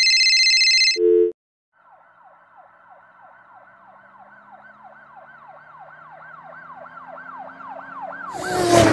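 Police siren sound effect wailing in rapid repeated rises and falls, growing louder and quicker, with a low hum rising slowly beneath it, and ending in a loud burst of rushing noise. It is preceded by a shrill tone about a second long and a short low buzz.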